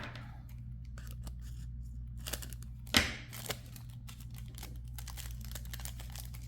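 Hands handling card-box packaging, with faint crinkling and rustling and scattered small clicks, and one sharper crackle about three seconds in. A steady low hum runs underneath.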